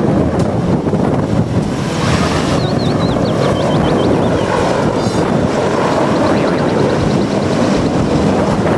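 Mil Mi-26 heavy-lift helicopter running at full power as it lifts off and climbs: a loud, steady rush of rotor and turbine noise with a fast low flutter from the main rotor.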